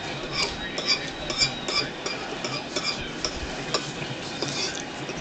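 Metal fork clicking and scraping in a plastic salad bowl while eating: a run of irregular taps and scrapes, busiest in the first two seconds.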